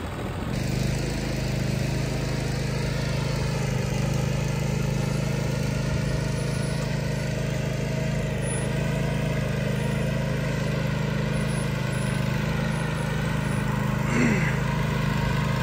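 Riding lawn mower engine running steadily under load as it tows a trailer carrying a heavy wooden utility pole across grass.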